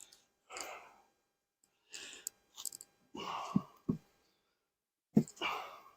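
Wooden beehive frames and boxes being handled during an inspection: several short scraping and crunching sounds, with a couple of dull knocks a little past the middle and a sharper knock near the end.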